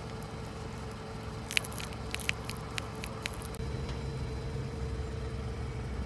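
A car with its engine running and a faint steady hum; a handful of sharp crackles and clicks as crumbs and grit crunch under its tyre, the loudest about a second and a half in. Then a low rumble from about three and a half seconds in as the car rolls forward over asphalt.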